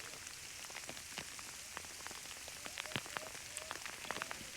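Sleet and ice pellets falling, a faint steady hiss with many small irregular ticks as the pellets strike nearby surfaces.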